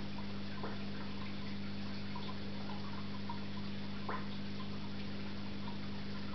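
Steady hum of an aquarium's filter pump with light water drips and small ticks, and two sharper clicks, one under a second in and one about four seconds in.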